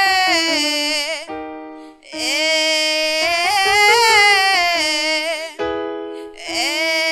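A singer belts a vocal-fry-to-belt scale exercise in phrases that rise and fall in pitch. Between the phrases a keyboard twice sounds the next starting notes as steady held tones.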